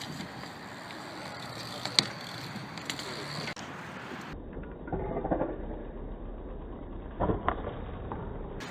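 BMX bikes riding on skatepark concrete: tyres rolling, with scattered sharp clacks, one louder about two seconds in. After a cut about four seconds in, the sound turns duller, a low rumble with a few heavier knocks.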